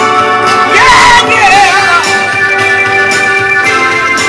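A man singing a soul song: a wavering, sliding vocal phrase in the first two seconds over steady held backing chords, which carry on alone after the voice stops.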